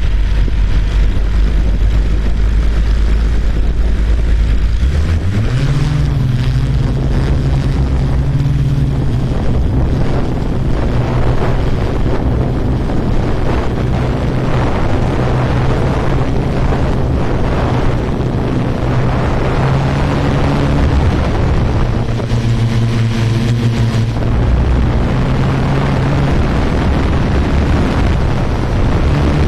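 Quadcopter drone's motors and propellers, heard close up: a low hum that rises in pitch about five seconds in as the drone spins up and lifts off, then runs steadily in flight, with wind rushing over the microphone.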